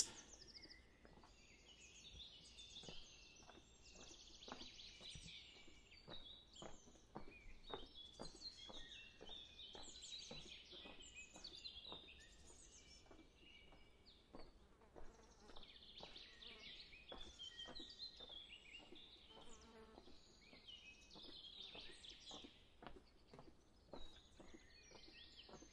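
Faint chirping and twittering of small birds, with soft footsteps on stone paving at an even walking pace.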